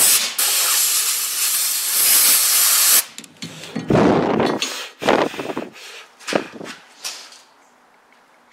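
A pressurised jet hisses loudly and steadily for about three seconds as dust is cleaned from around the oil pressure switch. It cuts off, and then come knocks and scrapes as a deep socket is fitted over the switch.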